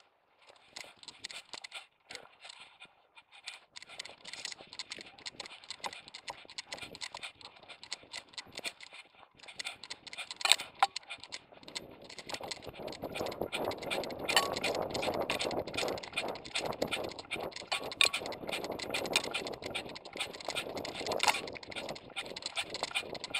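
Action camera strapped to a running dog's vest, rattling and knocking with every stride, with rustling and thudding from the dog's movement. It grows louder and denser about halfway through.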